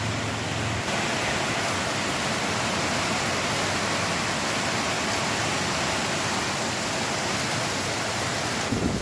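Heavy rain falling, a steady even hiss. A vehicle engine's low hum carries over into the first second.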